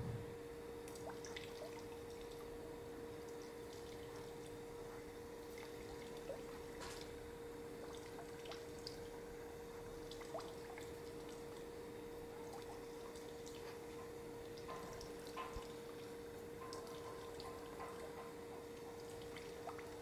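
Faint background ambience: a steady low hum with scattered small clicks and ticks.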